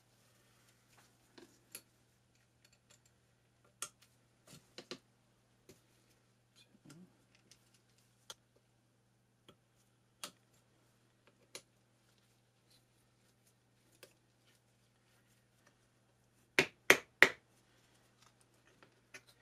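Scattered light metallic clicks and taps of a pick and screwdriver working against the parts inside a lathe turret tailstock housing, with a close group of three sharper clicks near the end.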